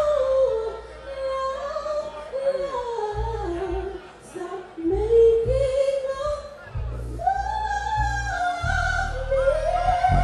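A woman singing a sliding, ornamented vocal line over band accompaniment with deep, held bass notes.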